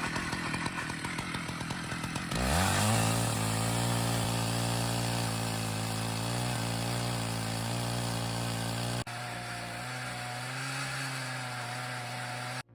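Long-bar chainsaw revving up about two seconds in, then running steadily at full throttle while cutting into a large log. About nine seconds in it changes abruptly to a slightly quieter steady run, and it cuts off suddenly at the end.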